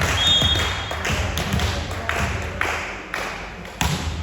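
Ball strikes and thuds echoing in a sports hall during a volleyball rally, about half a dozen impacts, with a brief shoe squeak near the start.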